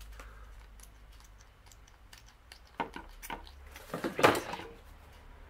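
Light clicks and knocks of a perfume bottle and its packaging being handled, with a short hiss about four seconds in, the loudest sound.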